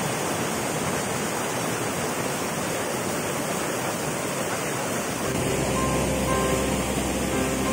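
Shallow river water rushing over rocks in small rapids, a steady rush. About five seconds in, background music comes in under it.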